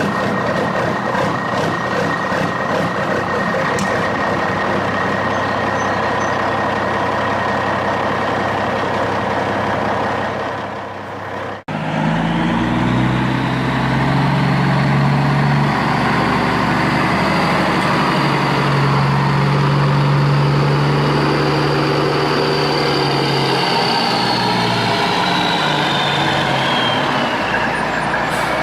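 Heavy-vehicle engine sound from the RC construction models, running steadily for about twelve seconds. It cuts off abruptly and gives way to a different engine sound whose pitch rises and falls, with a high whine sliding down near the end.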